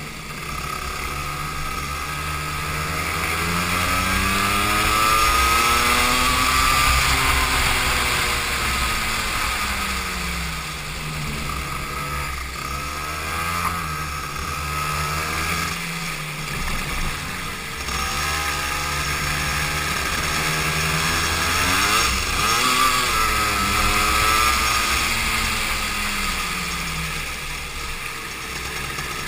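Racing go-kart engine close by, its pitch rising as it accelerates out of the corners and dropping as it slows for the next, several times over, with a steady rushing hiss behind it.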